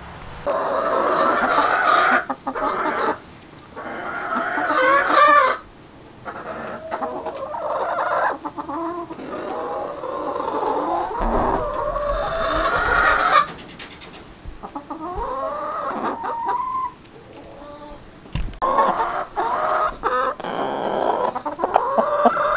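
Flock of domestic chickens clucking and calling, a run of drawn-out calls one after another with short breaks between.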